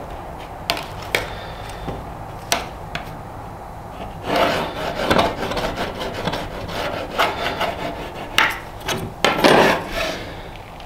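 Pencil scratching across a sheet-metal disc in repeated strokes along a steel ruler, marking out lines. A few light clicks come in the first few seconds, then the scratching comes in bursts from about four seconds in, loudest near the end.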